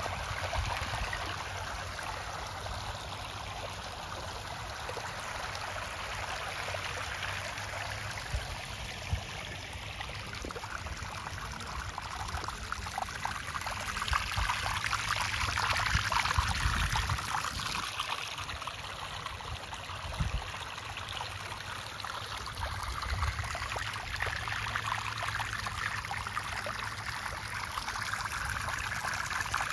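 Shallow water running and trickling over a pebble-aggregate concrete stream bed and around set stones, a steady stream sound that grows louder for a few seconds just past the middle.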